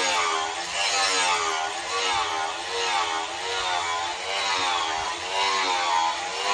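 Steel axe head being sharpened by hand on a flat stone: a scraping, whining tone that rises and falls with each back-and-forth stroke, about one and a half strokes a second.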